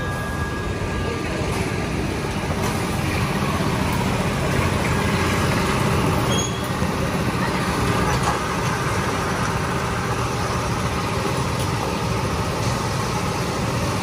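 Go-kart engines running in a steady, continuous mechanical rumble, with background voices.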